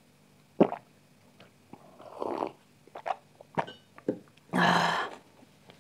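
A person gulping buttermilk from a glass, with a sharp swallowing click about half a second in and smaller mouth and throat sounds. A louder breathy exhale follows near the end.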